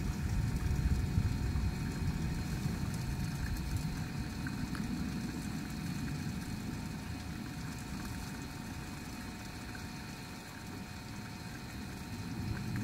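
Steady low outdoor background rumble, easing a little near the end, with faint steady high tones above it.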